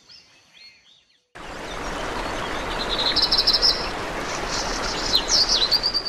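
Birds calling over a steady rushing noise that starts abruptly about a second in. The calls include a rapid trill, and near the end several quick sweeping chirps. Faint chirps fade out before it starts.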